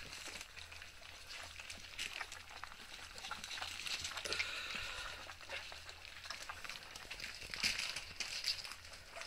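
Three-week-old puppies eating minced meat from a shared steel pan at their first solid meal: a dense, wet crackle of many small smacking, lapping and chewing sounds, busier and louder about three quarters of the way through.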